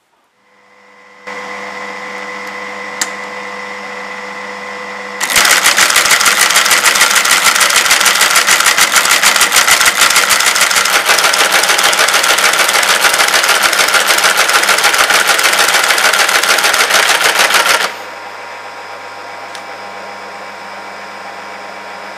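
Siemens T37i teleprinter. Its motor starts up and hums steadily. About five seconds in, the machine begins reading the punched tape and printing, a loud, fast, unbroken clatter that lasts about twelve seconds and then stops, leaving the motor humming.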